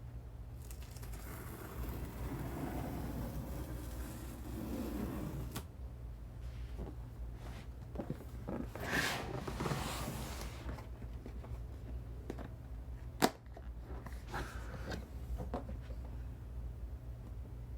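Cardboard box and packaging being handled and opened: rustling and sliding with scattered knocks, and one sharp click a little past two-thirds of the way through.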